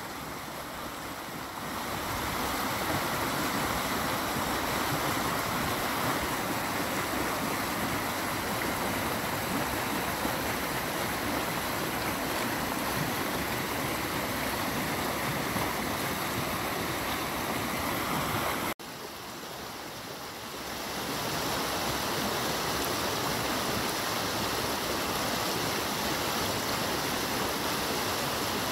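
A creek swollen after two days of rain, fast muddy water rushing and churning over rock ledges in a steady wash of noise. It is softer for the first two seconds, breaks off for an instant about two-thirds of the way in, and comes back softer before swelling to full strength again.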